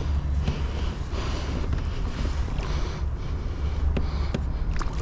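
Wind buffeting the microphone in a steady low rumble, over water noise, with a few light knocks.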